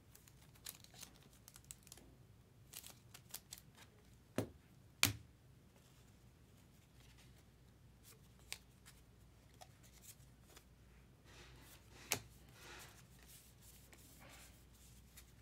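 Trading cards being handled and slid through a stack: faint rustling and light taps, with a few sharper clicks just after four seconds in, about five seconds in and again about twelve seconds in.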